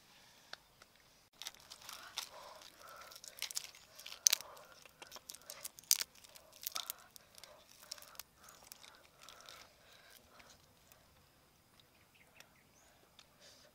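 Shells of grilled prawns being cracked and peeled by hand: a run of sharp crackles, snaps and tearing. It starts about a second in, is busiest in the middle and thins out near the end.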